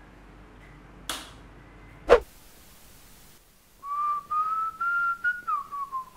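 A man whistling a short tune: several notes that rise a little, then slide down near the end. Before it come a brief swish about a second in and a sharp thump just after two seconds, the loudest sound here.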